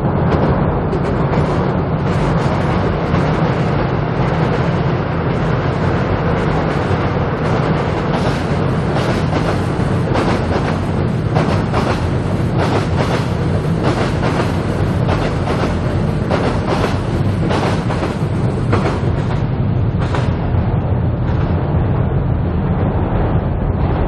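Seoul Subway Line 7 train crossing Cheongdam Bridge overhead. From about eight seconds in to about twenty seconds in, its wheels clack rapidly over the rail joints, over a steady low rumble that continues throughout.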